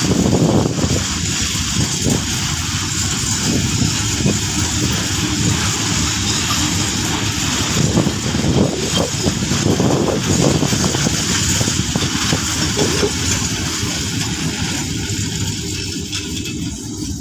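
Freight train of flat wagons rolling past close by: a steady rumble of steel wheels on the rails with repeated clattering clicks, easing off near the end as the last wagon goes by.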